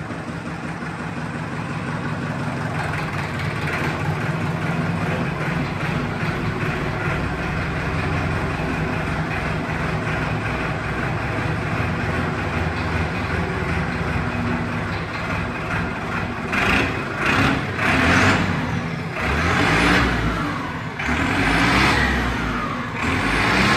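Turbocharged tractor diesel engine running steadily, then revved hard in about five surges near the end, the pitch rising and falling with each one. The turbocharger has just been fitted.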